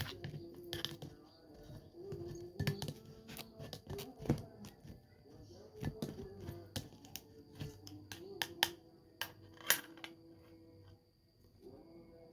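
Irregular light clicks and taps of kitchen utensils against a strainer and bowl as a steamed herbal mixture is pressed through to squeeze out the liquid and leave only the pulp.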